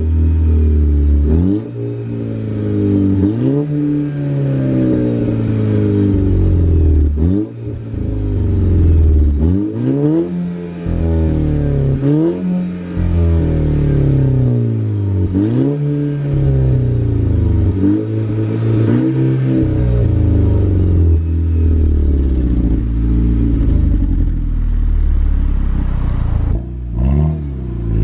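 VW Scirocco 2.0 TSI turbocharged four-cylinder, APR Stage 1 tuned, revved over and over while standing, through a Milltek Sport non-resonated turbo-back exhaust. The revs climb and drop back roughly every two seconds, with a few sharp cracks on the drops.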